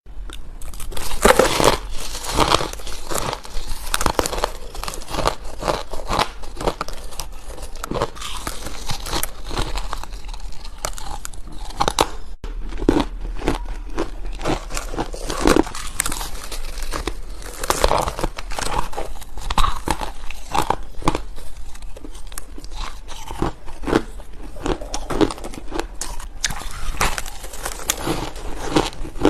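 Close-up crunching and chewing of ice chunks dusted with powdered milk and matcha: a dense run of crisp cracks and crackles, bite after bite.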